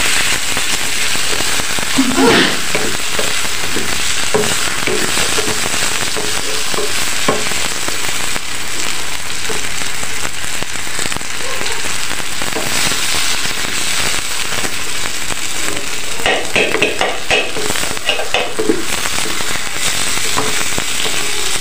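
A paratha frying in butter on a flat tawa griddle over a gas burner, sizzling steadily. Now and then a spoon scrapes and taps across the bread as it spreads the butter.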